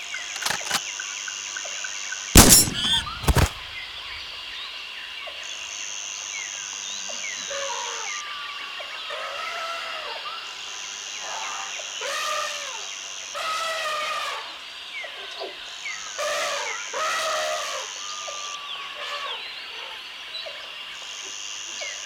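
Jungle ambience: a steady insect drone, with a higher insect buzz that switches on for about three seconds every five seconds. From about eight seconds in there are repeated rising-and-falling bird calls. A loud sudden burst about two seconds in is the loudest sound.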